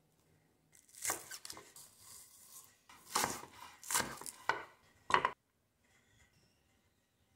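Kitchen knife chopping scallions on a wooden cutting board: quick strikes in short runs starting about a second in, stopping abruptly a little past five seconds in.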